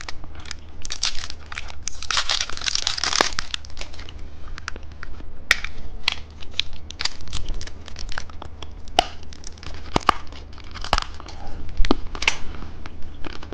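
Plastic candy wrapper crinkling and tearing as it is unwrapped by hand, with many sharp crackles and clicks; the densest crinkling comes about two to three seconds in.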